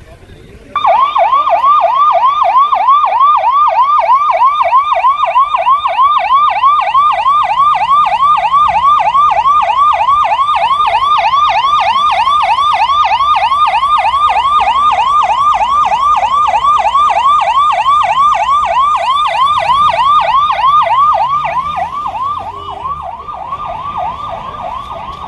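Emergency vehicle's electronic yelp siren, loud and close, repeating quick rising sweeps several times a second. It starts suddenly about a second in and turns softer about 21 seconds in.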